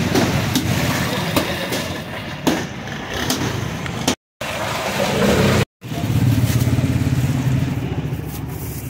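Street traffic: a motor vehicle engine running close by, with a steady low hum that grows louder about six seconds in, under scattered sharp clicks. The sound cuts out briefly twice.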